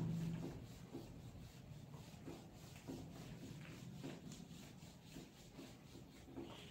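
Cloth wiping a whiteboard clean: a string of faint rubbing strokes, one or two a second.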